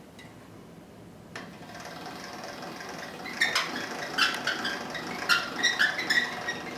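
Hand-cranked pasta machine being cranked to roll dough through the rollers at setting two: a click about a second in, then from about halfway a quick irregular clicking and rattling of the crank and gears.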